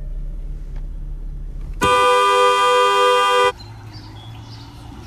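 Car horn sounding one long, steady blast of about a second and a half, starting about two seconds in and cutting off abruptly.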